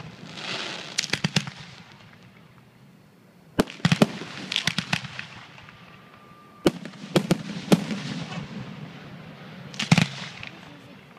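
Aerial fireworks display: shells bursting in sharp bangs that come in clusters, about a second in, around four to five seconds, around seven seconds and near ten seconds, with crackling and hissing after several of the bursts.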